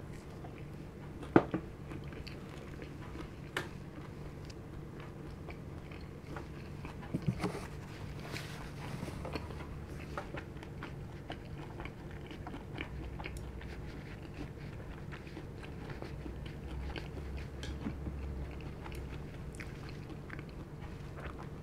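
A person chewing food with the mouth closed: soft wet chewing with scattered small crunches and a sharper crunch about a second in, over a steady low hum.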